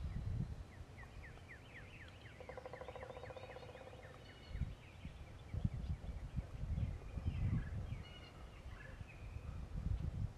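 A wild turkey gobbler gobbles once, a rapid rattling call about two and a half seconds in, lasting about a second and a half. Small birds chirp around it, and several low thumps come in the second half.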